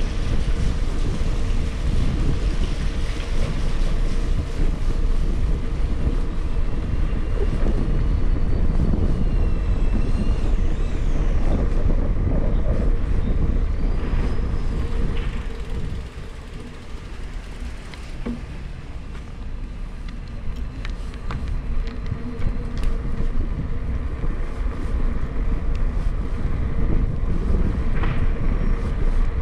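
Wind rushing over the microphone with low road rumble from a bicycle being ridden along a street, dropping quieter for a few seconds past the middle.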